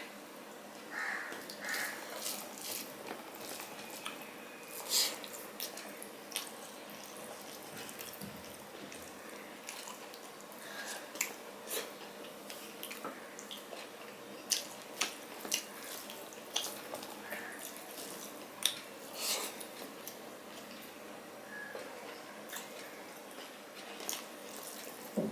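Close-miked eating sounds: fingers squishing and mixing rice with fish curry on a steel plate, and wet, smacking chewing, with irregular sharp little clicks throughout.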